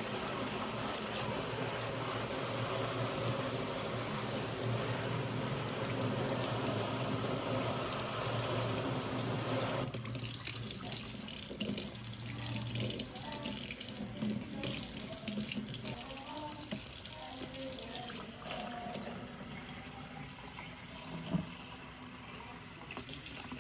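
Tap water running over pothos cuttings' roots being rinsed under a faucet. About ten seconds in the steady rush eases, leaving lighter, uneven splashing and dripping.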